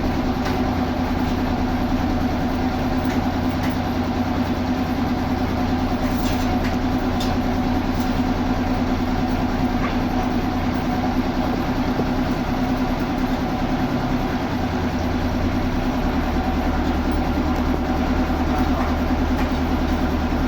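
Heavy sawmill machinery running steadily: a continuous low engine drone with a steady hum and a few faint knocks.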